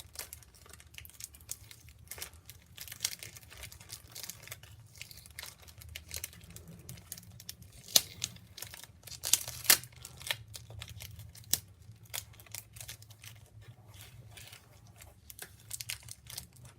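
Packaging crinkling and tearing as it is pulled apart by hand, with many sharp crackles; the loudest are a little past the middle.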